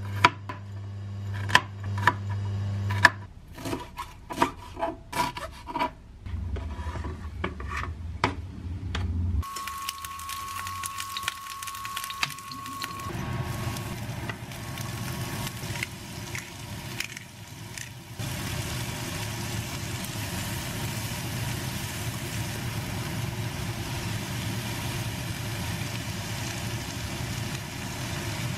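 A chef's knife chopping on a plastic cutting board, a quick run of sharp taps, then a frying pan sizzling steadily as garlic and shrimp fry in olive oil, the hiss starting a little before halfway and growing fuller a few seconds later.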